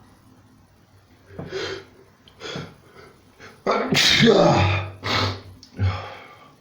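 A person sneezing several times in a row: a few short sneezes, then one loud, drawn-out voiced sneeze about four seconds in, followed by two shorter ones.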